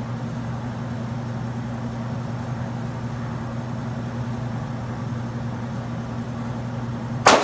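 Steady low hum, then a single pistol shot near the end, loud and echoing off the concrete walls of an indoor range.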